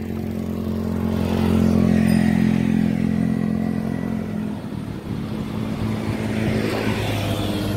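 A motorcycle engine running steadily in nearby traffic, strongest for the first four and a half seconds and then fainter, over road and wind noise.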